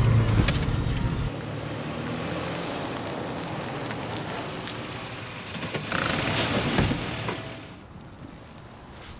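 A car running with a low engine hum that cuts off about a second in, then a car rolling up over asphalt, its tyre noise swelling loudest as it draws close about six seconds in, with a knock near seven seconds before it settles quieter.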